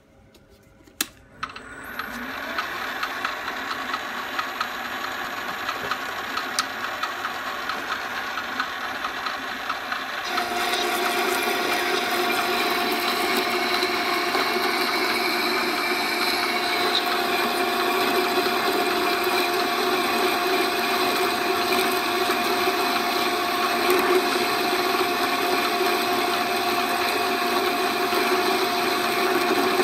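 VB21 metal lathe switched on with a click about a second in, its motor and gears spinning up to a steady running sound. About ten seconds in the sound steps up louder, with a steady tone and a harsher edge, as the parting tool cuts into the spinning metal workpiece.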